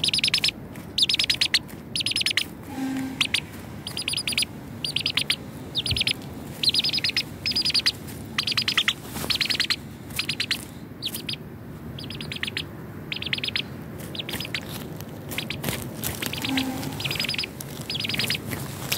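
Baby chick peeping steadily: high, quickly falling peeps, about one or two a second. A short low cluck comes twice, once about three seconds in and once near the end.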